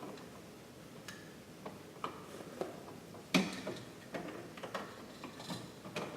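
Irregular small clicks and ticks of a screwdriver turning a dimmer switch's terminal screw down onto a wire, with one louder click about three and a half seconds in.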